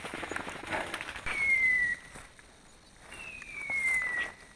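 A high whistling tone sliding down in pitch, heard twice about two seconds apart, each under a second long, over light crackling of twigs and leaves underfoot.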